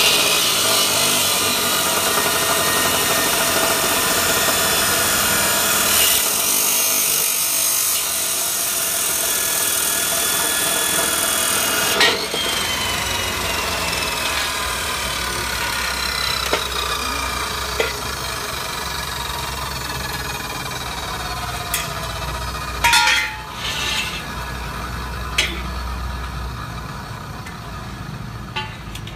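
Electric chop saw running, its 14-inch green abrasive cut-off wheel grinding through steel bar with a harsh, hissing grind over the motor's whine. The grinding is harshest for about the first twelve seconds, then eases, with a few sharp knocks later.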